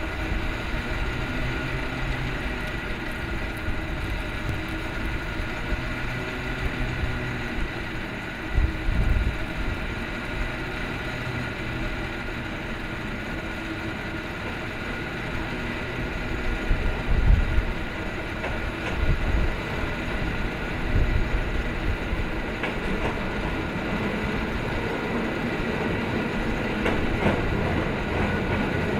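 San Francisco cable car climbing the hill on its track toward the listener: a steady rail rumble and clatter with a few low thumps along the way, growing slightly louder near the end.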